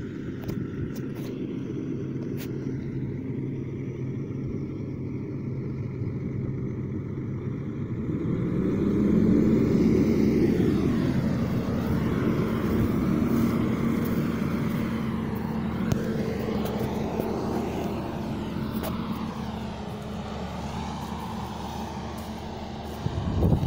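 Wheel loader's diesel engine working on a silage clamp. It runs steadily at first, then revs up about a third of the way in and holds the higher revs while pushing over the pile.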